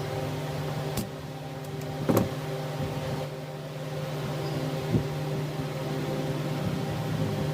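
A small electric motor running with a steady hum, with a few sharp knocks about a second in, about two seconds in and near the middle.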